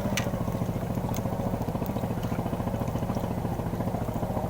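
Small engine running steadily at an even, fast putter, with a few faint clicks over it.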